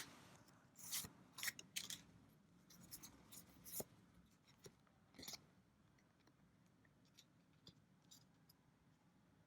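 Faint handling of trading cards and booster-pack wrapping: a scatter of soft clicks and rustles over the first five seconds or so, then near silence.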